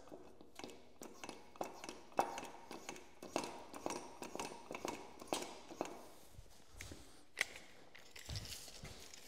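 A quick, uneven run of light clicks and ticks, about three a second, then a few dull low thumps and one sharp click near the end, from hand work on a Porta Power hydraulic spreader.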